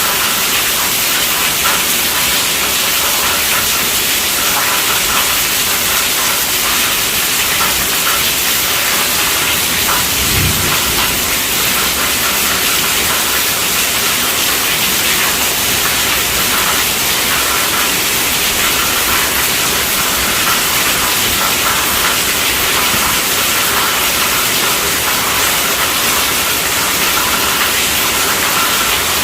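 Heavy rain falling steadily on a tent roof: a dense, even hiss of drops hitting the fabric. A brief low thump comes about ten seconds in.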